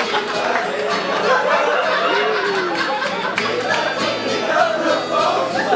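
Music playing, with held low notes, under the voices and laughter of a group of people.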